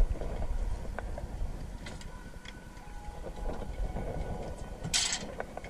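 Wind rumbling on the microphone over water washing against a boat's hull, with a few light knocks and a short hiss about five seconds in.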